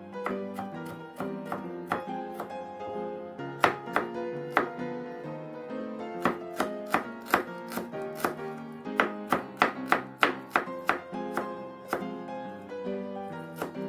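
Kitchen knife slicing shallots thinly on a plastic cutting board: sharp taps of the blade on the board, about three a second in uneven runs. Soft background music plays underneath.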